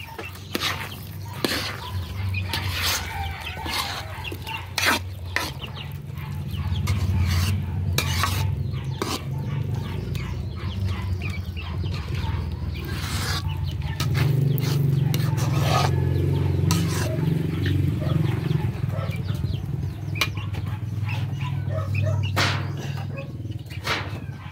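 Metal ladle stirring a thick mass of sticky rice and brown-sugar syrup, with scattered scrapes and clicks against the pan over a steady low rumble. Chickens cluck in the background.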